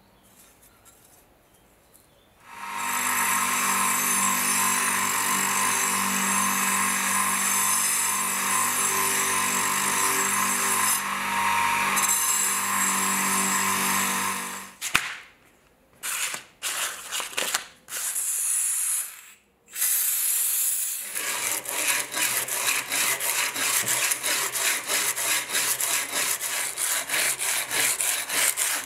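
A small electric motor with a wheel on its shaft runs steadily from about two seconds in and cuts off about fifteen seconds in. After a few short scrapes, an abrasive is rubbed along the pitted steel bayonet blade in rapid, even back-and-forth rasping strokes, a few a second.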